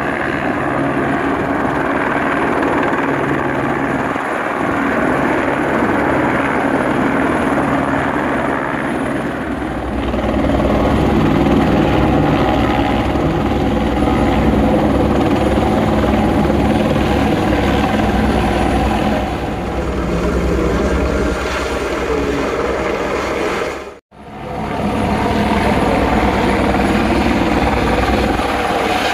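AS350 Squirrel-type single-engine helicopter hovering low, its rotor and turbine running steadily, with rotor downwash blowing over the ground to dry an unsealed road. About ten seconds in, the low rumble grows louder; the sound drops out for an instant near the end.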